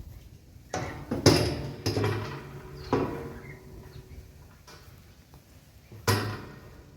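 A series of sharp knocks and clatters, about five, with a short ring after each, the loudest about a second in and the last near the end: gear and fittings being handled and knocked together.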